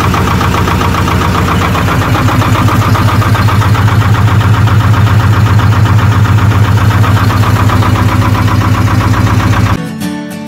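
A narrowboat's multi-cylinder diesel engine running up close with a rapid, even beat, growing louder about two seconds in. Near the end it cuts off abruptly and acoustic guitar music takes over.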